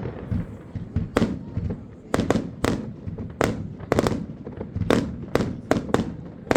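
New Year's Eve fireworks going off: an irregular series of sharp bangs, about a dozen in all, coming thicker in the second half.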